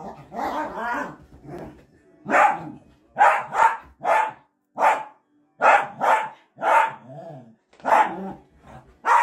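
Miniature dachshund barking repeatedly: about a dozen short barks in an uneven run, roughly one or two a second.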